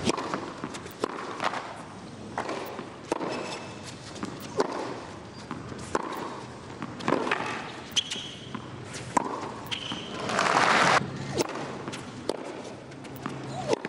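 Tennis rally on a hard court: racquet strikes and ball bounces about a second apart, with short high shoe squeaks on the court surface. A brief loud rush of noise comes about ten seconds in.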